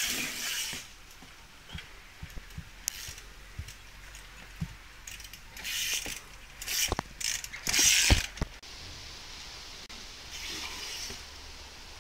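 Trials bicycle hopping among rubber tyres: bursts of rapid freewheel ratchet clicking, with a couple of sharp knocks about seven and eight seconds in as the bike lands on the tyres. The loudest moment is around eight seconds.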